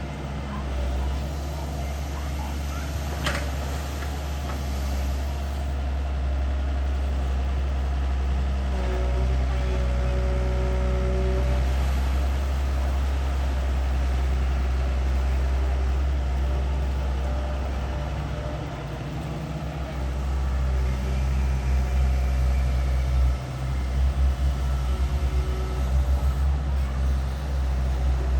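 Diesel engine of an IHI long-reach excavator running steadily with a low rumble while it digs. A brief whine sounds about nine seconds in. From about twenty seconds in, the engine note throbs in rapid pulses.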